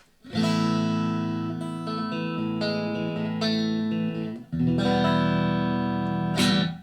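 Electric guitar played through a Blackstar ID:Core 40 combo amp: a strummed chord rings out for about four seconds with a few notes changing over it, then a second chord is struck about four and a half seconds in and stopped near the end.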